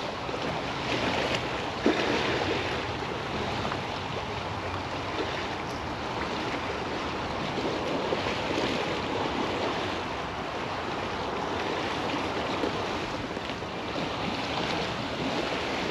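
Steady wind and estuary waves washing against the embankment on a very high tide, with wind buffeting the microphone. There is a single knock about two seconds in.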